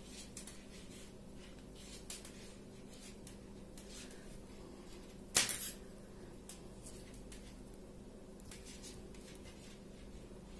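Faint clicks and taps of knitting needles working stitches, with one louder click about five seconds in, over a low steady hum.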